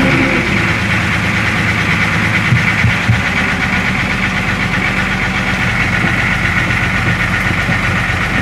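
Engine of a river excursion boat running with a steady low drone. A few light knocks come about two and a half to three seconds in.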